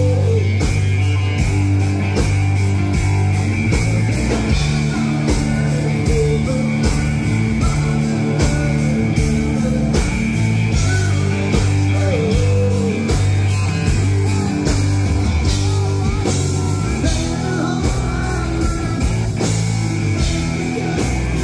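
A live band plays a country-rock song: a male lead voice sings over a drum kit, electric bass and guitar, with a steady beat and sustained bass notes.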